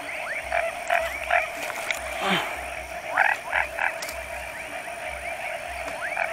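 Chorus of frogs calling: short calls repeated several times a second, many of them quick upward-sweeping notes, over a steady background drone.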